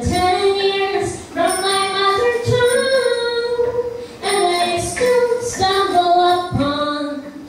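A woman singing a slow melody into a microphone, in short phrases of long held notes.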